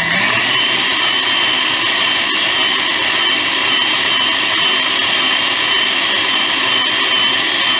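Countertop blender motor running at high speed, liquefying aloe vera gel with a little water. Its whine rises in pitch right at the start, then holds steady.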